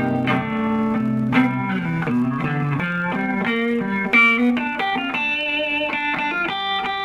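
Epiphone Les Paul Special electric guitar with two humbuckers, played through an amplifier: a run of picked notes and partial chords, with vibrato on held high notes in the second half.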